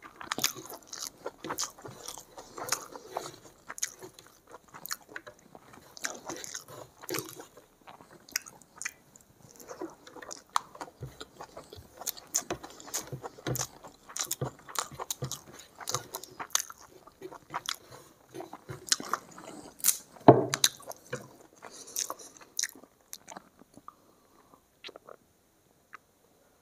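Close-miked eating sounds: a person chewing mouthfuls of egg curry and rice, with many short wet clicks and crackles. There is one louder sharp sound about twenty seconds in, and the chewing thins out near the end.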